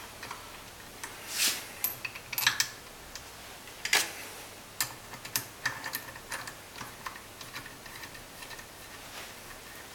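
Scattered light metallic clicks and clinks of hand tools and parts being handled: a diesel unit pump being fitted into a steel clamping fixture and a hex key taken from a metal tray. A few sharper knocks stand out in the first half, then lighter ticks.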